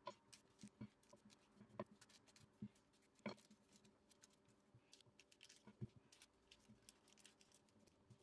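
Faint rustling and scattered soft taps of baking paper and a wooden rolling pin as dough is rolled out flat between the sheets, the loudest tap a little over three seconds in.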